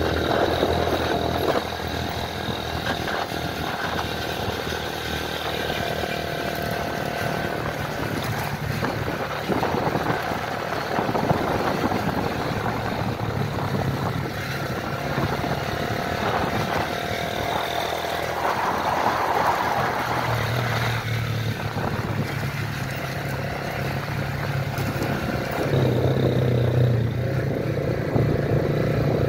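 Engine of a moving road vehicle running steadily, with wind and tyre noise from riding along a dirt road; the engine note shifts slightly in pitch a few times.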